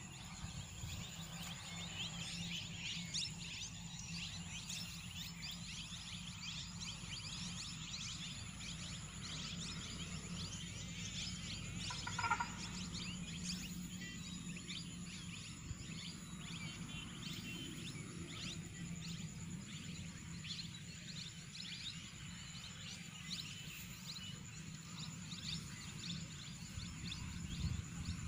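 Open-field ambience: many small birds chirping throughout over a steady high insect drone and a low steady rumble, with one louder short call about twelve seconds in.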